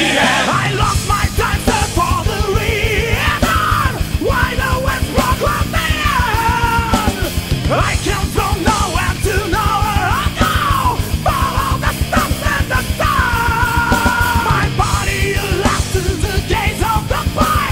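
Loud rock music with fast, steady drumming and sung vocals, including a long held note in the second half.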